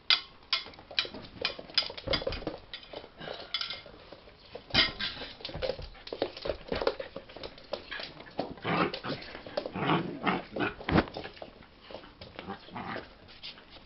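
Two dogs play-wrestling on a wooden floor: a rapid, irregular clatter of claws clicking and paws scrabbling, thickest in two flurries near the start and again in the second half.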